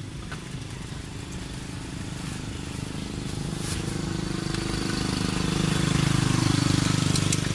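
A motor vehicle's engine running close by, its low steady note growing louder from about halfway in and peaking near the end, as if the vehicle is coming closer.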